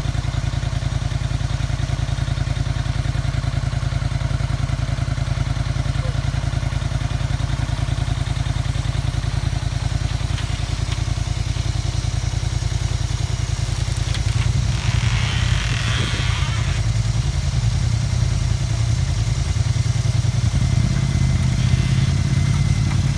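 Polaris Scrambler 850 ATV engine running steadily at idle. About two-thirds of the way through it gets louder and fuller, with a brief rustling crackle over it.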